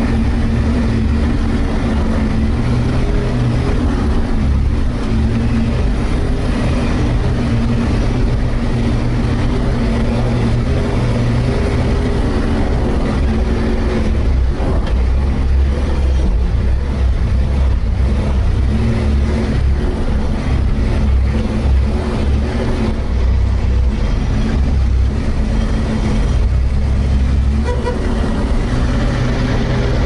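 All-terrain vehicle's engine running steadily under load while driving, a loud, constant drone; the engine note rises near the end.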